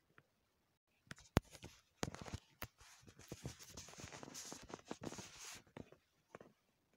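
Handling noise on the recording phone's microphone: a few sharp knocks, the loudest about a second and a half in, then a few seconds of close rubbing and rustling while the phone is moved and set in place, with more light knocks near the end.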